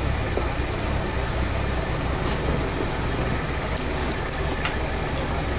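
Off-road pickup truck crawling slowly over a rocky dirt trail: a steady low engine rumble with the rattle of the body over stones, and a few sharp clicks about four seconds in.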